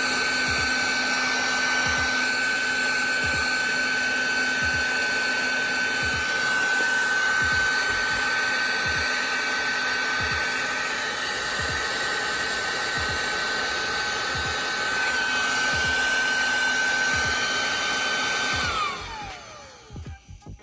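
Heat gun blowing steadily with a high whine while heat-shrink butt connectors on the halo wiring are shrunk. Near the end it is switched off, and the whine falls away as the fan spins down.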